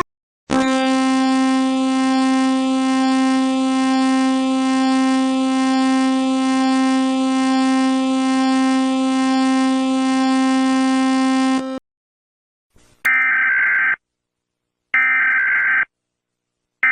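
Emergency alert alarm tones: a steady, low buzzing tone held for about eleven seconds that cuts off suddenly. After a short gap come two higher beeps of about a second each, two seconds apart.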